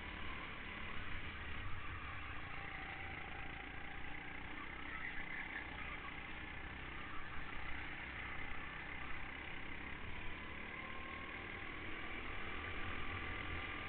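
Go-kart engine running at speed, heard from an onboard camera on the kart, a continuous engine drone mixed with low rumble as the kart laps the track.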